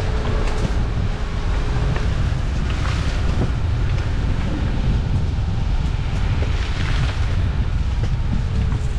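Dacia Duster driving along an unsurfaced green lane: a steady low rumble from the vehicle and the rough track, overlaid with wind buffeting the microphone, and a few faint knocks.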